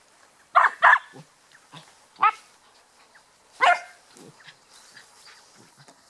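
Puppies barking in short, sharp barks: two in quick succession about half a second in, then single barks at about two and three and a half seconds.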